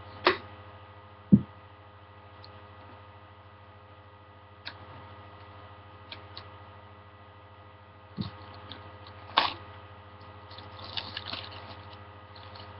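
Hands handling and opening a sealed cardboard gift box: scattered sharp knocks and taps, one duller thump, and a short run of small crackles near the end, over a steady electrical hum.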